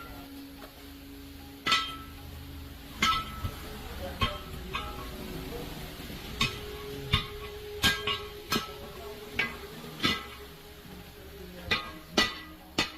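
Hammer blows on metal, struck at an irregular pace, each with a short metallic ring.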